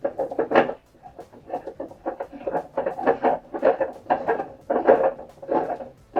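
Large plastic screw-on lid of a Fermzilla fermenter being twisted down onto its threads by hand, rubbing in repeated short strokes about twice a second.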